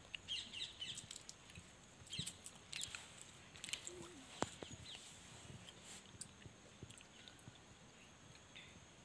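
Faint bird chirps: several clusters of short, high calls in the first half, thinning out later, with a few soft clicks among them.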